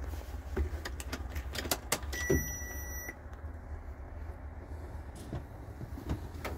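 Clicks and a knock from the key and switches in a Mercedes-Benz truck cab, then a steady electronic beep of about a second from the instrument cluster as the ignition is switched on and the warning lamps light. A low steady rumble runs underneath.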